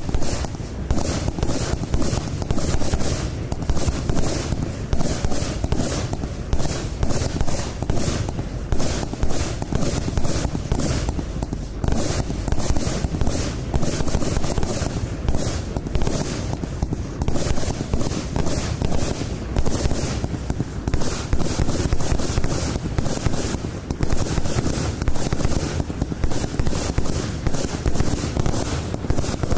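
100-shot F2 salute battery (18 mm tubes) firing a long rapid run of loud bangs, several a second without a break.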